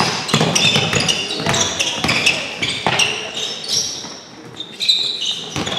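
Balls bouncing irregularly on a hard gym floor, mixed with the short high squeaks of sports shoes on the court during a team ball drill.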